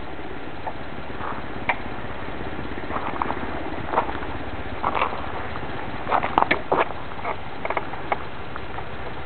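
Children's quad's small engine idling steadily, with scattered irregular clicks and knocks over it.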